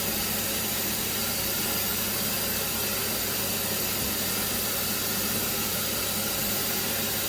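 A steady hiss with a constant low hum underneath, unchanging throughout.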